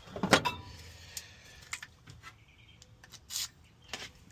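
Small clicks and rattles of lock parts and tools being handled, loudest as a quick clatter about half a second in, with scattered lighter clicks and a brief rustle later.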